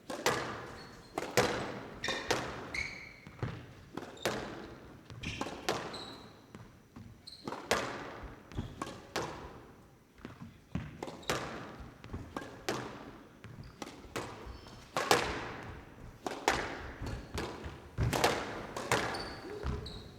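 A squash rally: the ball being struck by rackets and hitting the court walls in a steady run of sharp, echoing cracks about one a second, with a few short squeaks of court shoes between shots.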